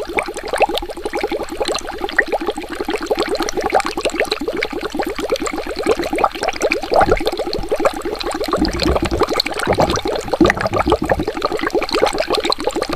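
Water bubbling in a rapid, continuous stream of small bubble pops, with deeper gurgles about seven seconds in and again for a few seconds near the end.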